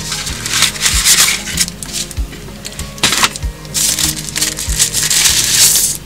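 Paper envelope being opened by hand, with loud crinkling and rustling of its packaging in several bursts, the longest near the end, over background music with a steady beat.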